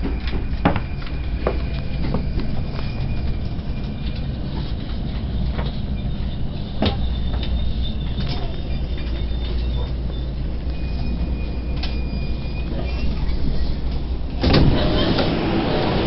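Commuter train interior running into a station: a steady low rumble with scattered clicks and faint high-pitched squeals. Near the end it gives way suddenly to a louder wash of noise as the doors open onto the platform.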